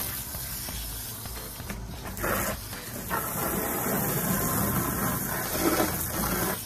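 Garden hose spray nozzle hissing as water jets onto a wet dog's coat, louder from about two seconds in.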